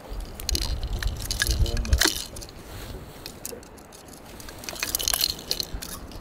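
Metal pliers and lure hooks clicking and clinking as a lure is worked free from a northern pike's mouth, in scattered clicks that are loudest about two seconds in and again about five seconds in. Wind rumbles on the microphone underneath.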